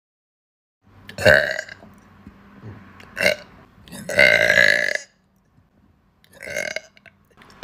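A woman burping four times, with gaps of silence between. The third burp is the longest, drawn out for about a second.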